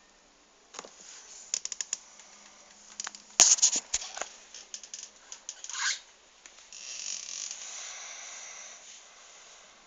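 Irregular clicking and scraping, loudest about three and a half seconds in, as a cat paws and scratches at a door to be let in, followed by a softer steady scraping hiss.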